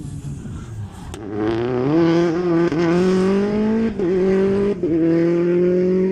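Rally car accelerating hard, its engine note climbing in pitch with brief breaks about four seconds in and again a second later as it shifts up through the gears.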